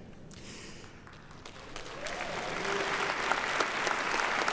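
Congregation applauding, starting faintly about two seconds in and building into steady clapping.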